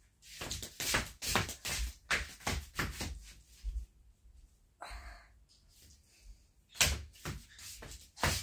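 A quick, irregular series of thumps and knocks, several a second, with a short lull in the middle before they pick up again.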